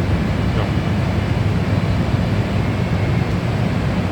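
NJ Transit ALP-45DP dual-mode locomotive's diesel engines running in diesel mode, a steady low rumble.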